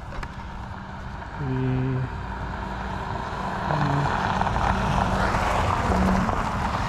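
A steady engine drone that grows louder past the middle, with a few short low pitched tones over it.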